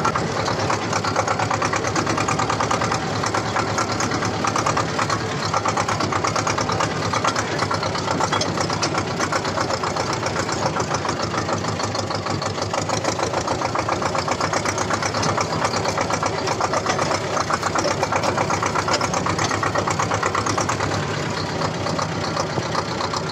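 T-25 tractor's two-cylinder air-cooled diesel engine running steadily as the tractor drives along a rough track, heard close up from the driver's seat, with an even, rapid beat of its firing strokes.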